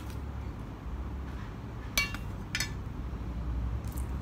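Eating utensils clinking against dishes at a meal: two sharp, briefly ringing clinks about two seconds in, half a second apart, and a fainter tap near the end, over a low steady hum.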